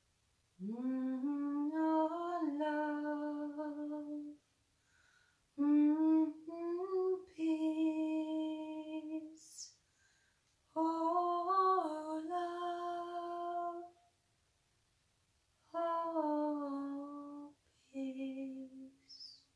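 A woman's voice singing wordless, held notes in five slow phrases with short breaths between, sliding gently from one pitch to the next: vocal toning.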